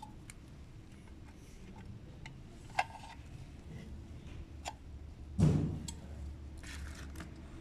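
Scattered light clicks and taps from a car headlight projector assembly being handled and worked with a hand tool, with a heavier thump about five and a half seconds in.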